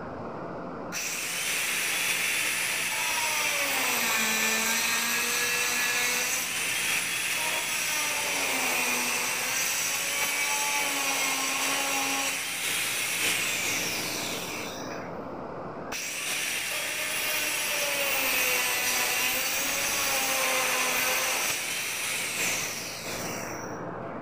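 Electric power saw cutting wood in two long passes, the first about 14 s and the second about 8 s. The motor's pitch sags and recovers under load, and the motor winds down at the end of each cut.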